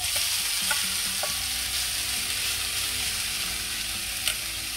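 Mixed vegetables for thoran (grated carrot, cabbage and beans with crushed coconut) sizzle as they are tipped into hot coconut oil in a pan. The frying hiss starts sharply as they land and eases slowly, with a few light taps.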